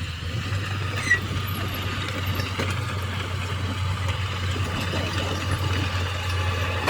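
Heavy diesel engine of construction machinery running steadily, with a short sharp squeak or click about a second in.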